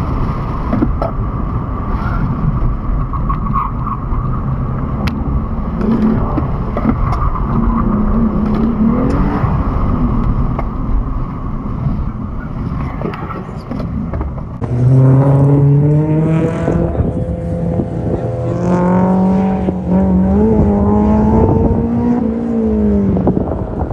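Car engine driven hard, its pitch climbing and stepping as it accelerates and shifts, then dropping off near the end, with tyre and wind noise underneath.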